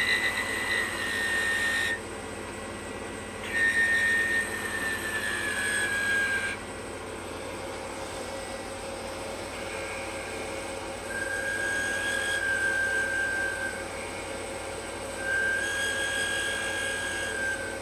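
Wood lathe running while a chisel makes fine cuts on a spinning mahogany finial, each cut giving a high, steady whistling whine. The cutting comes in four bouts of two to three seconds, with only the lathe's hum in the gaps.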